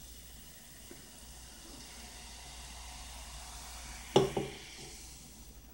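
Cola poured from a can into a glass, the carbonation fizzing steadily. A single sharp knock on the table about four seconds in, the loudest sound.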